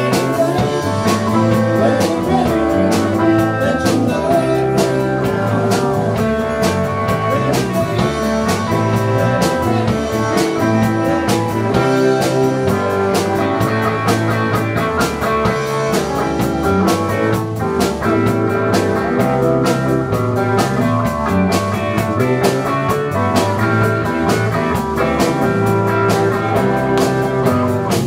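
Live band playing a blues-rock song, with electric guitar and drums.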